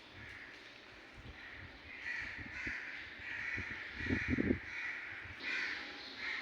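Birds calling outdoors: a run of short, harsh calls repeated about twice a second, starting about two seconds in. A couple of low thumps come around four seconds in.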